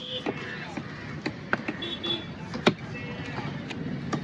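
Knife chopping through a trevally on a cutting block: a few sharp, irregular knocks, the loudest about two-thirds through, over background chatter.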